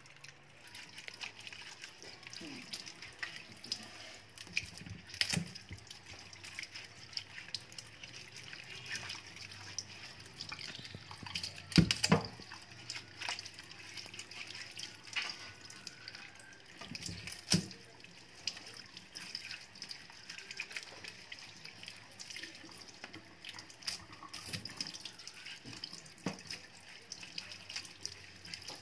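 Tap water running into a stainless steel sink while unripe bananas are rinsed and rubbed by hand, with splashing and occasional knocks of the bananas against the sink; the loudest knock comes about twelve seconds in.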